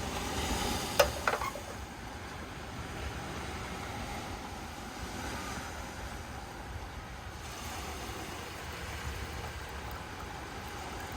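Steady rushing background noise, with two sharp clinks about a second in, a quarter second apart.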